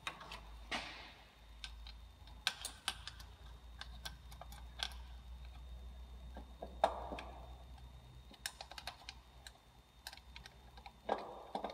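Scattered small clicks and taps, irregularly spaced, as a wiring-harness clip is worked off the back of a car's starter motor, over a faint low hum.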